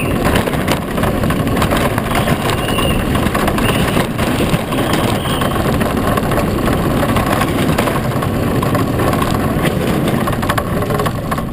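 Low racing cart rolling over asphalt: a steady, loud rumble and rattle from its wheels and body, with a few faint short squeaks in the first half.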